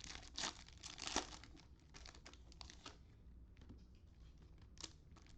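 Plastic trading-card pack wrappers crinkling as cards and packs are handled, in irregular bursts of small crackles, quieter in the middle with another burst near the end.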